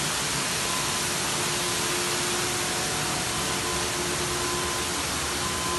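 Water pouring and splashing from a hole in a collapsed ceiling onto the floor, a steady rushing hiss.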